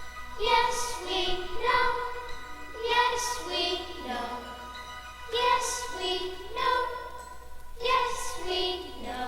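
Background music with jingling percussion: a short melodic phrase repeating over a held note.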